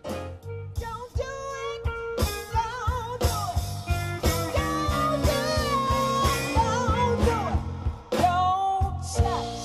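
Live blues band: a female vocalist singing long, wavering notes over electric guitar, bass guitar, drums and keyboards.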